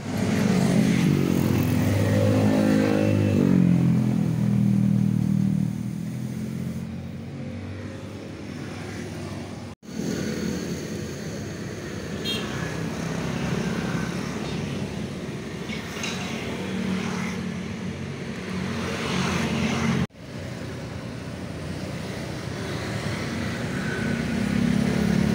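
Street traffic: motor scooters and cars passing close by, their engines rising and falling as they go past, broken off abruptly twice.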